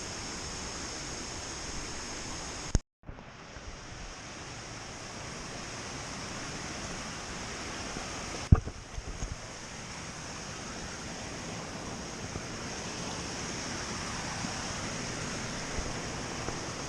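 Steady rushing water of a rainforest creek or waterfall, with a high hiss. A sharp click and a momentary dropout come about three seconds in, and a single sharp knock a little past the middle.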